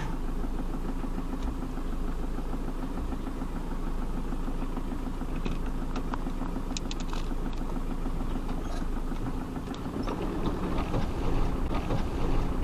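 Off-road vehicle's engine running steadily at low revs, heard from inside the cabin, with scattered light clicks and rattles. About ten seconds in it grows louder and rougher.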